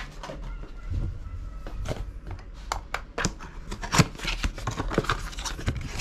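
Cardboard tyre box being handled, with a string of irregular clicks, knocks and rustles, the loudest knock about four seconds in.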